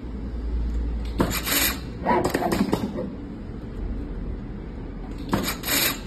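Desktop tape wrapping machine running its wrap cycles on a copper wire coil: a short, high hiss followed by a brief mechanical whir and rubbing, twice, about four seconds apart.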